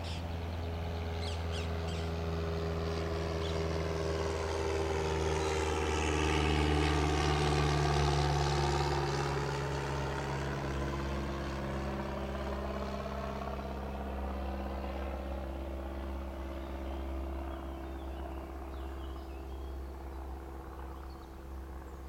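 Engine of a passing vehicle, a steady low hum that grows louder to its peak about eight seconds in and then slowly fades as it moves away.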